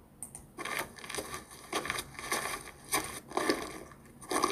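A sound effect played back from a video-editing app's library: a run of sharp, noisy bursts at an irregular pace, about two a second, starting about half a second in.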